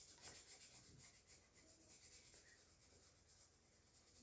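Faint scratching of a felt-tip marker colouring on paper, in short irregular strokes.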